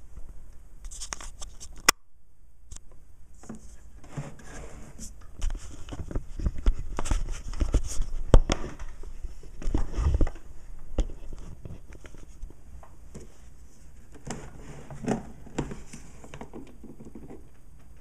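Irregular rustling, scraping and light knocks of close handling, busiest in the middle and settling down over the last few seconds.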